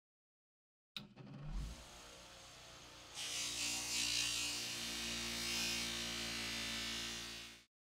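A bench grinder's motor, fitted with a cotton buffing wheel, comes in about a second in and runs with a steady hum. From about three seconds in a louder hiss joins it as the steel knife blade is pressed against the spinning wheel and buffed to a shine. The sound cuts off abruptly just before the end.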